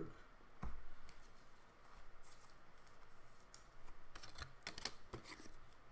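Trading cards and their plastic penny sleeves and rigid top loaders being handled: a soft knock about half a second in, light plastic rustling, then a quick cluster of sharp clicks near the end.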